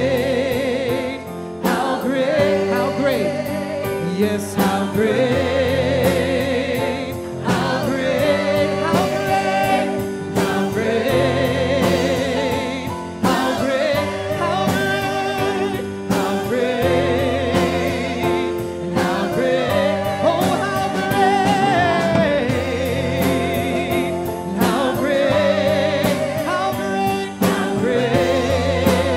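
Live gospel worship music: a praise team singing with a band, voices wavering with vibrato over sustained chords and a steady beat.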